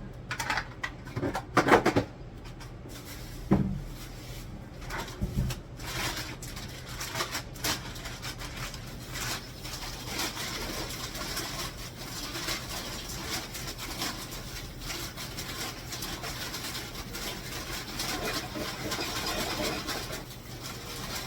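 Household handling noise in a kitchen: a few sharp knocks and clatter as items are moved around a cupboard, then continuous rustling and small ticks of things being handled.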